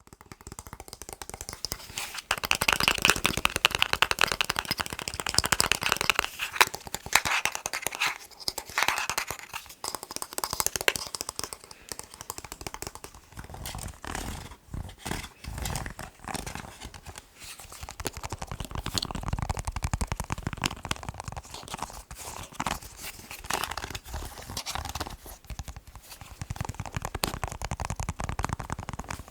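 Fast tapping on a plastic TV remote: a dense run of rapid small clicks, louder for the first ten seconds or so.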